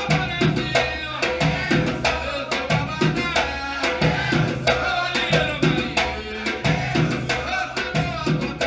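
Music from a drum and percussion ensemble playing a steady, driving rhythm, with a pitched melodic line over the drums.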